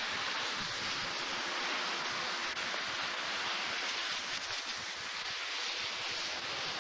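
Steady rushing noise of storm wind, even and unbroken, with no separate impacts.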